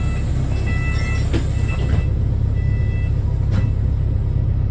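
Wrightbus New Routemaster series-hybrid bus running, its Cummins ISBe 4.5-litre four-cylinder diesel giving a steady low rumble. Four short electronic beeps sound over the first three seconds, with a couple of faint clicks.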